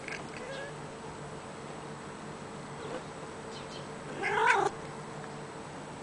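A cat gives one short, loud call, about half a second long, about four seconds in. Its pitch rises and then falls, the kind of meow a cat makes while watching birds through a window. A couple of faint short chirps come earlier.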